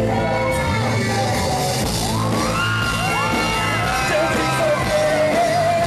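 Live pop-rock band playing through a club PA: drums, electric guitar and a male lead vocal singing with shouted lines from about two seconds in.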